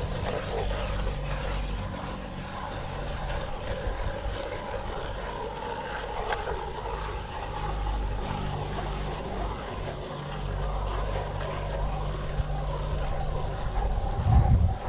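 Hand ice auger boring through lake ice: the blades make a steady grinding scrape as the crank is turned. A short, loud, low thump comes near the end.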